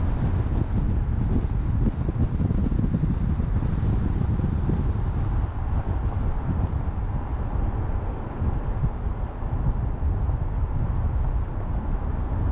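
Wind buffeting the microphone outdoors: a loud, low, unpitched rumble that flutters unevenly.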